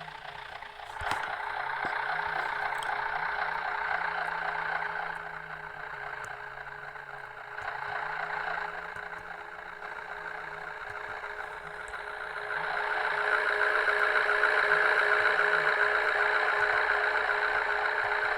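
Cabin noise of a MAZ-105 articulated city bus under way: its engine and drivetrain running with a steady drone and whine. It grows louder about a second in, eases off in the middle, and grows louder again about two-thirds of the way through, as the bus pulls away and speeds up.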